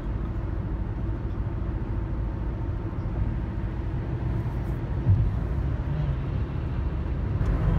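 Steady road and engine noise inside a car cruising at freeway speed, a low rumble with a faint steady hum. A single short bump about five seconds in.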